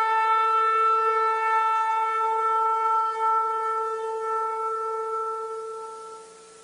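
Shofar (ram's horn) sounding one long, steady blast on a single held pitch, which fades away near the end.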